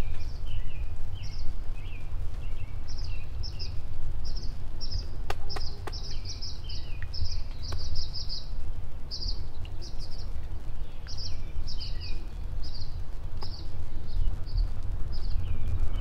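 Small birds chirping over and over in short high notes, often several a second, over a steady low rumble, with a few faint clicks about a third of the way through.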